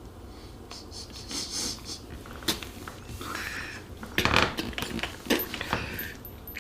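Irregular clicks, scrapes and rustles of small objects being handled, with a cluster of louder knocks and rubbing about four seconds in.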